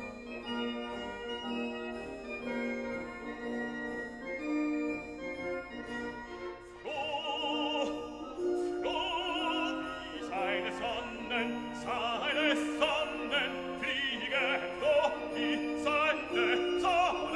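Classical background music. Keyboard or organ-like accompaniment plays alone at first, then a singer with strong operatic vibrato comes in about seven seconds in and sings over it.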